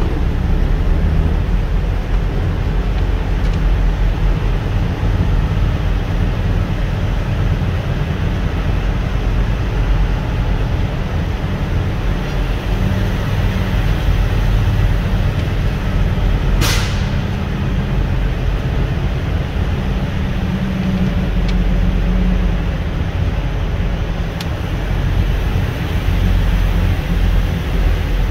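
Steady low engine and road rumble heard from inside a vehicle's cab as it drives slowly. About 17 seconds in there is one brief, sharp hiss.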